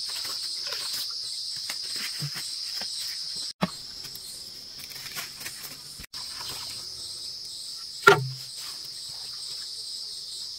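A steady, high-pitched insect chorus drones throughout, with scattered small clicks and knocks. One sharp knock about eight seconds in is the loudest sound.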